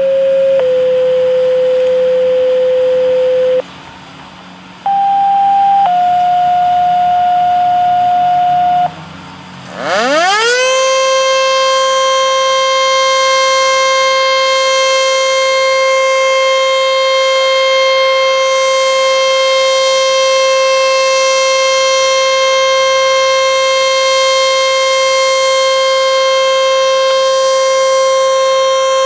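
ACA Screamer S-5 outdoor warning siren sounding a steady alert. It starts with two steady notes at different pitches, each broken by a short dip. About ten seconds in, it rises quickly in pitch and settles into one long steady tone.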